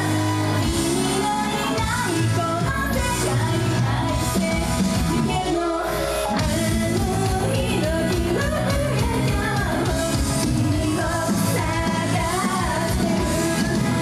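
Live idol pop song: female group vocals over loud backing music with a steady beat. The bass drops out briefly about six seconds in.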